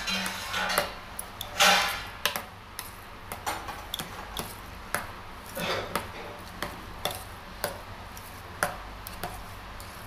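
Cooked rice being mixed by hand with tamarind paste in a stainless steel pot: irregular small clicks and taps against the metal, with a couple of longer, louder scrapes near two seconds in and again around six seconds.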